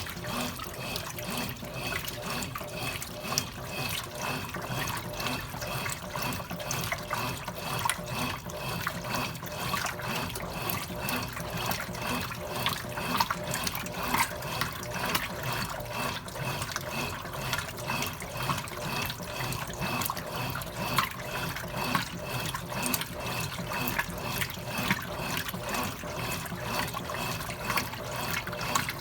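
Consul Cargo 8 kg washing machine running with water splashing inside. A faint high tone pulses about three times a second.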